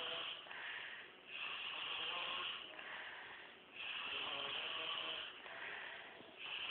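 A sleeping man snoring in a steady rhythm: a long rasping breath about every two and a half seconds, with a shorter rasp between each.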